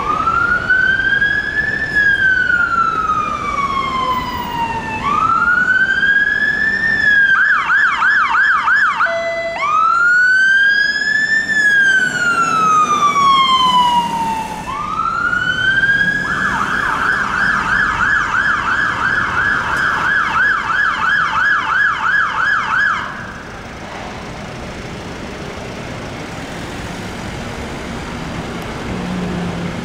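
London Fire Brigade Mercedes pump ladder's siren: slow rising-and-falling wails, twice switched to a fast yelp of about four warbles a second. The second yelp lasts several seconds, then the siren cuts off about three-quarters of the way through, leaving steady city traffic noise.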